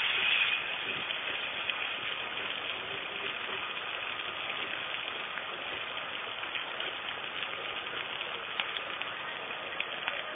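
A pot of kurt (soured-milk curd) mixture simmering on a gas burner in its second hour of boiling: a steady hiss with scattered small pops and ticks.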